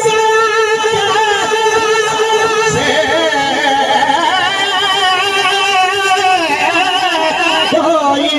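A man sings a Sufi devotional kalam, holding long, wavering notes that rise to a new, higher note about three seconds in, over a steady drone.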